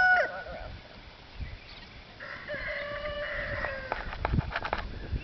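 Rooster crowing: the end of one loud crow cuts off just after the start, then a second, fainter crow about two seconds in holds its pitch and drops away at the end. A few soft low thumps follow near the end.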